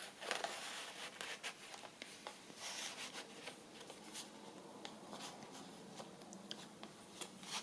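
Soft rustling and small taps of paper and card being handled: journal cards and tags shuffled and slid into the paper pockets of a handmade journal.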